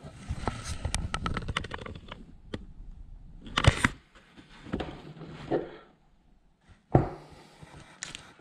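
Irregular clicks, knocks and scraping from a hand plastisol injector and a clamped soft-plastic lure mould being worked during an injection. There is a cluster of quick clicks in the first couple of seconds and sharper knocks about a third of the way in and near the end.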